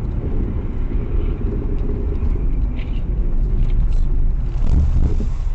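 Steady low rumble of road and wind noise heard inside a car driving at highway speed over a snow-covered road, picked up by a dashcam.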